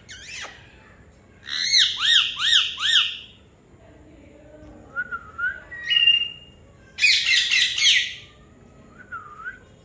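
Indian ringneck parakeet calling: a quick run of four loud, arching squawks, then a few softer short chirps and a harsh, scratchy call about seven seconds in.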